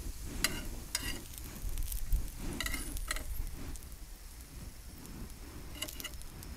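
Metal tongs clinking and scraping against a cast-iron grill press several times as meatballs are lifted off it, with the meat sizzling on the hot pan.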